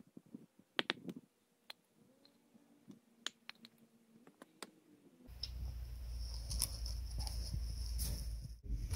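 Pieces of cut cedar wood knocking and clacking together as they are picked up by hand, a handful of sharp knocks over the first few seconds. About five seconds in, a steady rushing noise with a low rumble sets in suddenly and takes over.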